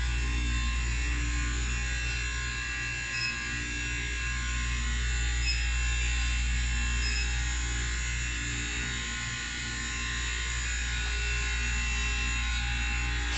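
Steady low electrical hum with a faint higher whine, and three faint short high beeps in the middle.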